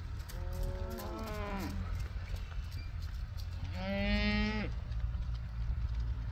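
Beef cows mooing twice: a long moo that drops in pitch at its end, then a shorter, louder one about four seconds in, over a steady low rumble.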